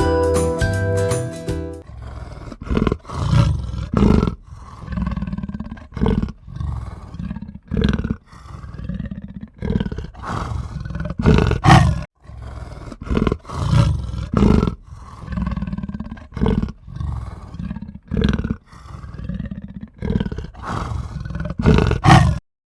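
A large animal roaring and grunting over and over, short rough calls about one a second, cutting off suddenly near the end. A short jingling music tail plays before the calls begin.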